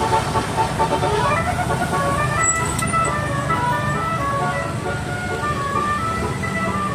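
Bus telolet basuri horn playing a quick tune of short notes at changing pitches over the low rumble of bus engines.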